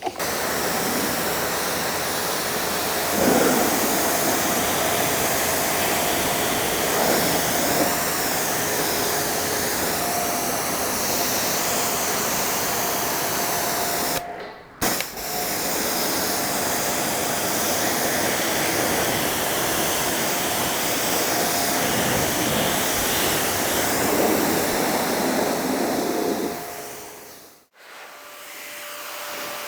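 An electric blower-type motor running with a steady rushing hiss and a faint whine. It is switched off for a moment about halfway, starts again, and spins down near the end.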